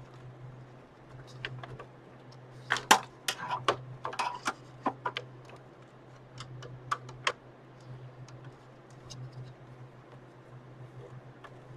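Sharp clicks and clatters of small hard PC parts and tools being handled, a dense run about three seconds in and a few more around six to seven seconds, over a steady low hum.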